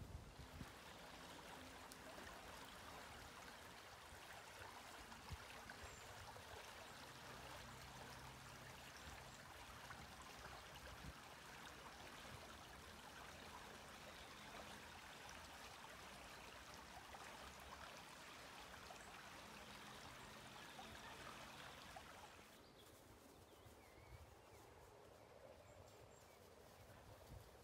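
Shallow stream running over a gravel bed: a faint, steady rush of water. It drops away to quieter outdoor ambience about three quarters of the way through.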